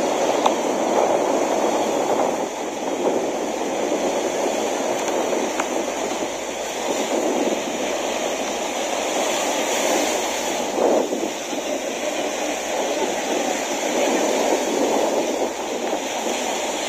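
Small waves breaking and washing up a sandy beach, a steady rushing surf that swells and eases.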